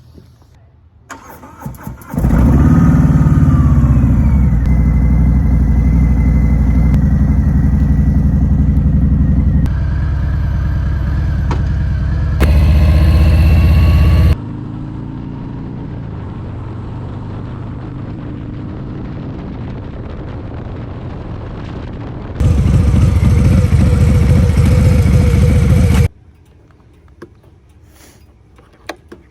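Harley-Davidson V-twin motorcycle engine starting up, revving and running. It comes in several stretches that jump abruptly in level, then cuts off suddenly near the end.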